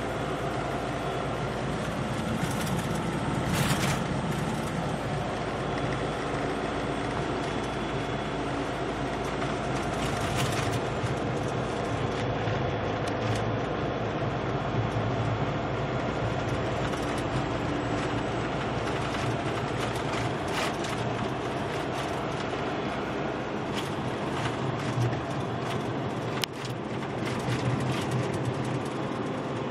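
Steady drone of a truck's engine and tyres at highway speed, heard inside the cab, with scattered light clicks and rattles.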